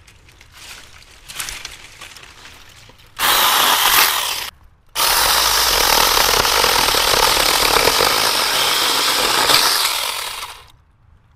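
UUPLife cordless 21-volt mini chainsaw's electric motor and chain. It gives a short burst about three seconds in, stops briefly, then runs steadily while cutting through a branch for about six seconds and stops near the end. Before that, quieter rustling of branches being handled.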